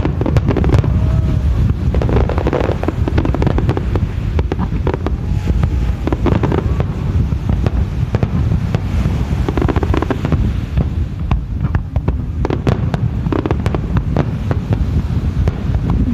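Aerial fireworks display: many shells bursting in quick, irregular succession, sharp bangs mixed with crackling, over a constant low rumble.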